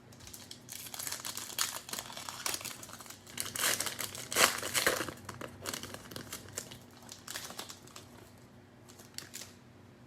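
Cellophane wrapper of a Panini Mosaic football cello pack crinkling as it is torn open and handled, an irregular run of crackles that is loudest in the middle and thins out near the end.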